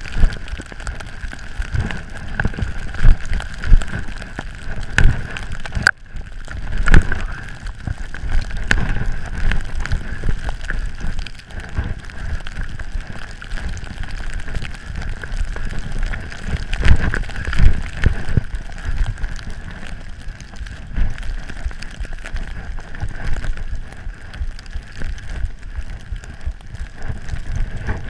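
Wind buffeting the action-camera microphone while skis run through snow on a descent, a low rumbling roar with several louder thumps and a steady high tone underneath.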